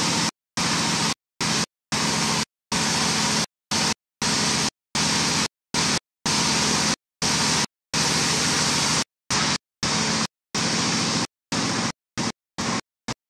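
Band saw driven by a belted single-cylinder diesel engine, running steadily while a plank is fed through it: a low engine drone under a loud hiss of the blade cutting wood. The sound is chopped into pieces by many brief dropouts to silence.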